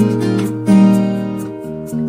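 Background music: acoustic guitar playing strummed and plucked chords.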